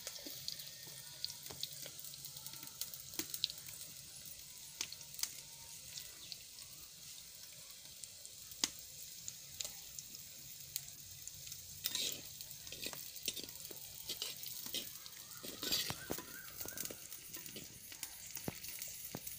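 Sliced onions sizzling in hot oil in a clay pot, a steady frying hiss. Short clicks and scrapes of a spoon stirring against the pot come throughout, more often in the second half.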